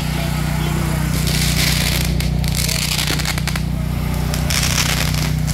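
Ground fireworks hissing in two spells, with sharp crackling pops between them, over a steady low hum.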